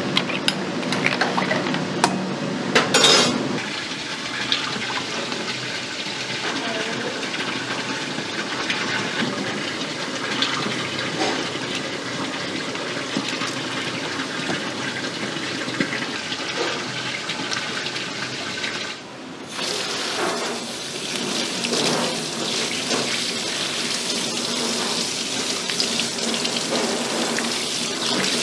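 Kitchen sounds: a ladle clinks a few times in a pot of clams in the first three seconds, over a steady background hiss. After a short drop about two-thirds of the way in, a tap runs into a stainless-steel sink as octopus is rubbed and rinsed under it.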